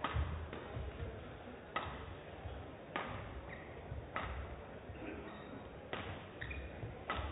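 Badminton racket strikes on a shuttlecock about every one to two seconds, with short squeaks of shoes on the court mat between some of the hits.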